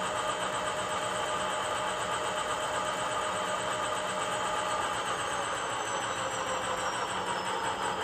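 A Loksound 5 sound decoder in an HO-scale WDG4 diesel model plays the diesel prime mover with its air compressor running, during the decoder's automatic rev-up cycle. Several steady tones hold, then begin to glide slowly down in pitch about five seconds in.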